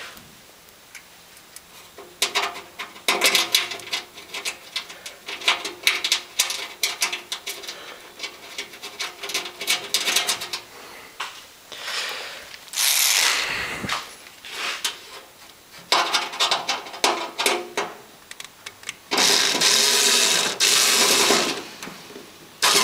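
Screwdriver and metal-handling noise on an electric heater's sheet-metal casing: a long run of clicks and clatter with some metallic ringing, then a few short bursts of rushing, rubbing noise.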